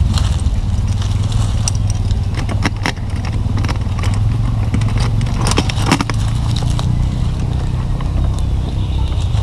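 Motorcycle running on the road, a steady low engine hum with scattered clicks and rattles.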